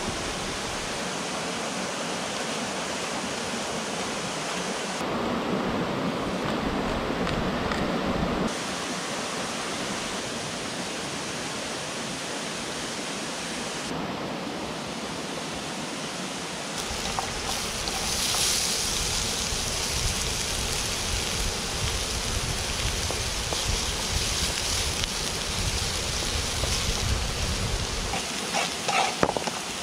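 Steady rushing of a flowing river, interrupted by a few cuts. A little past halfway it gives way to the hiss and crackle of chicken frying in hot oil.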